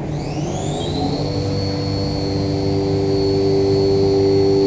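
Haas TM-1P CNC mill spindle spinning up: a whine that rises in pitch for about a second, then holds steady and grows slowly louder.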